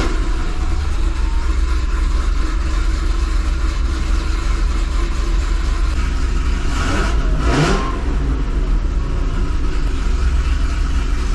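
2005 Chevrolet Corvette's LS2 V8 running steadily just after starting, through headers whose exhaust leaks have just been repaired with new V-band flanges; it sounds better, though a little leak may remain. A brief burst of noise comes about seven seconds in.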